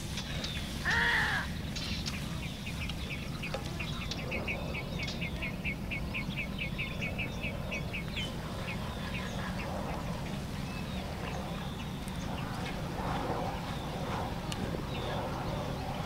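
One short, loud animal call about a second in, then a fast run of short high chirps, about five a second, lasting several seconds, over steady low background noise.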